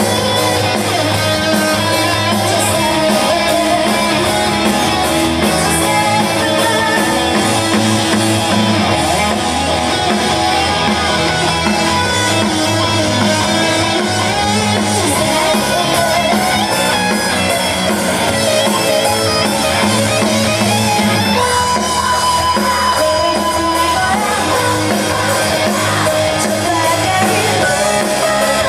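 Live indie rock band playing through a PA: guitar and drum kit in a mostly instrumental stretch, with a female lead vocal coming in near the end.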